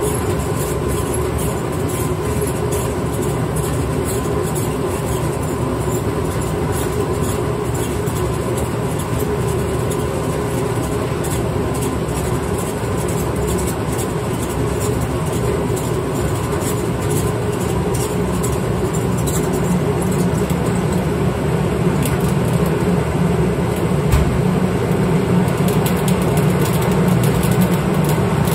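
Grain mill running steadily, crushing malted grain with a continuous rattling rumble and fine crackle, growing slightly louder with a deeper hum in the last third.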